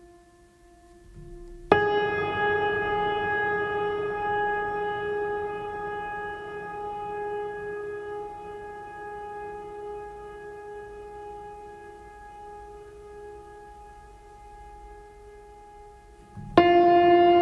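Background music of long ringing bell-like tones: one strikes suddenly about two seconds in and fades slowly, and a new, louder one strikes near the end.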